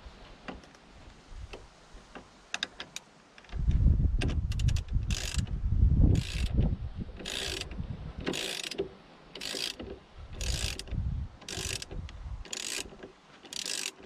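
Ratchet wrench snugging down the steering-wheel centre bolt on a Mercedes C-Class: short bursts of rapid ratchet clicking, one on each back-swing, about once a second. Heavy low knocking and bumping from the wheel being handled comes under the first few bursts.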